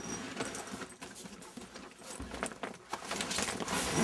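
A luggage-style case being handled and opened by hand: a string of irregular light clicks and knocks.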